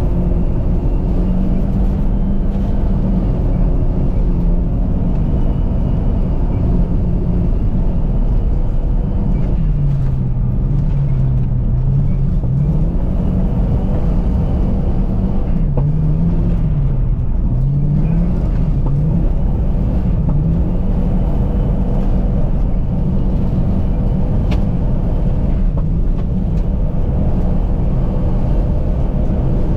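Car engine running hard while the car drifts on a frozen lake, the revs dropping and rising again and again as the car slides through the turns.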